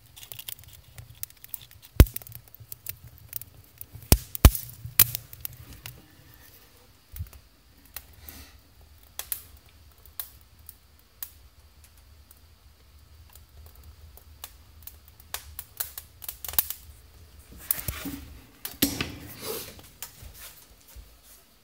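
Cedar kindling and paper burning in a wood stove, crackling with many irregular sharp snaps and pops, with a louder sharp click about two seconds in.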